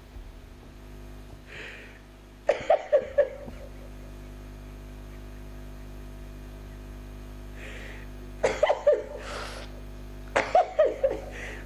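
A man sobbing into a microphone: three bouts of short, choked sobs, with sharp in-breaths between them.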